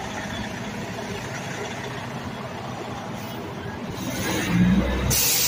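Car cabin noise: a steady hum of engine and road from inside a moving or idling car, getting louder near the end, with a sudden burst of hiss just before the end.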